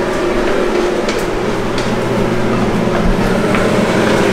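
Steady hiss and hum of scrambled eggs cooking in a non-stick frying pan on an electric hob. A few light clicks come from a chopstick knocking the pan as it stirs.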